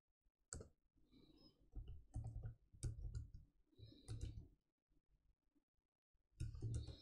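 Faint computer-keyboard typing: keys clicking in short runs with pauses in between.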